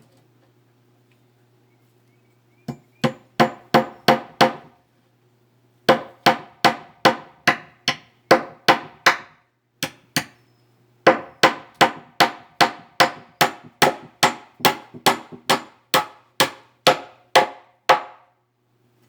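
Hammer blows, each with a short ringing tail, in three runs of steady strokes at about two a second with brief pauses between runs.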